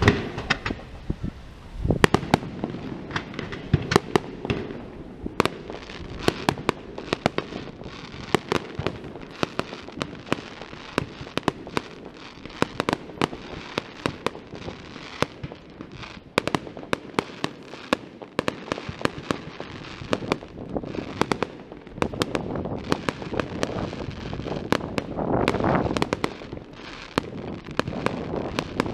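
Fireworks display: aerial shells bursting in an irregular string of sharp bangs and crackles, growing denser and louder for a few seconds near the end.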